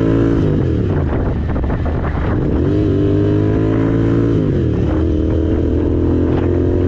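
Royal Enfield Continental GT 650's parallel-twin engine running through aftermarket exhausts on both sides. The engine note drops just after the start, picks back up and holds, then dips and rises again about five seconds in.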